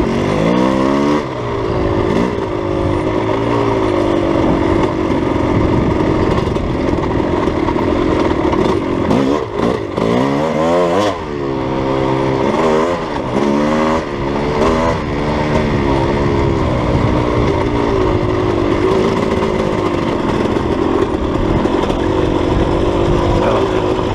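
Dirt bike engine running on a trail ride, its pitch rising and falling several times with throttle blips and roll-offs. On the roll-offs the engine holds the bike back through its Rekluse auto-clutch: engine braking.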